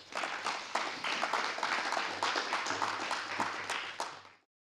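Audience applauding at the end of a talk, a dense patter of many hands clapping that cuts off suddenly near the end.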